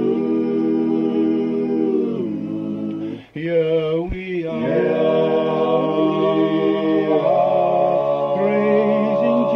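Male voices singing a cappella in close harmony, holding long chords that shift every second or two, with a short break a little over three seconds in.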